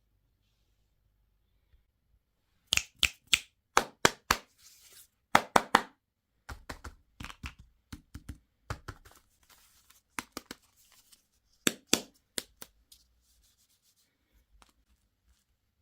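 Packaging being torn open and crinkled by hand: sharp crackles and tearing in short clusters, starting a few seconds in and going on and off.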